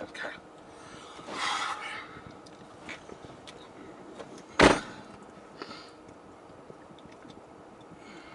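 A single sharp knock inside a car about four and a half seconds in, over a quiet background with a brief rustle near the start and a few faint small clicks.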